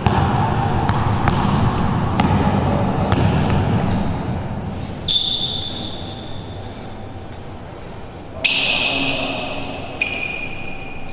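Basketball being dribbled on an indoor court floor, bounces about once a second, with high sneaker squeaks on the floor in the second half, the loudest about two thirds of the way in.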